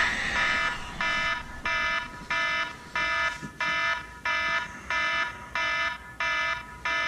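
Smartphone alarm going off, a repeating electronic beep pattern of about one and a half pulses a second, each pulse several tones sounding together.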